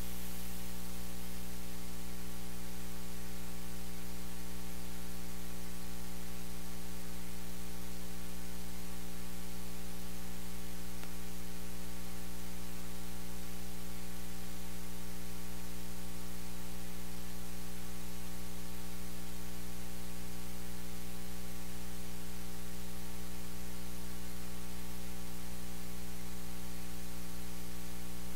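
Steady electrical mains hum, a low buzz made of many even overtones, with a layer of static hiss over it, holding at one level throughout.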